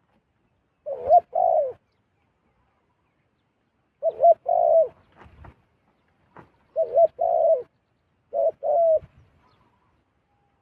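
A dove cooing: four two-part coos a few seconds apart, each a short note followed by a longer note that falls away at its end.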